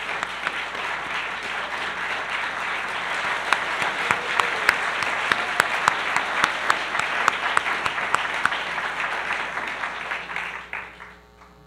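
Audience applauding, with single sharp claps standing out. It builds over the first few seconds and dies away about eleven seconds in.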